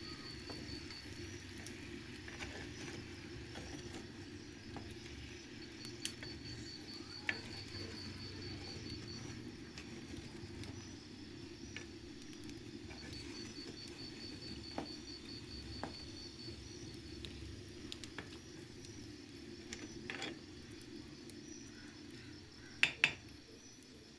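Wooden spoon stirring and scraping grated raw papaya in a clay pot over a wood fire, with scattered sharp clicks and knocks; the two loudest clicks come just before the end. Over it, an insect trills high-pitched in several stretches of a few seconds each.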